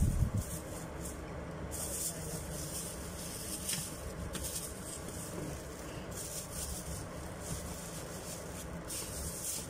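Rustling and handling noises from a plastic bag and fruit being moved about, over a steady low hum, with a thump at the very start.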